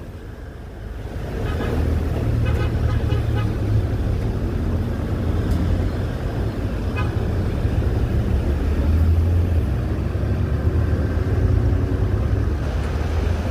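Steady low engine and road rumble of a car in slow city traffic, heard from inside the vehicle. It grows louder over the first second or two.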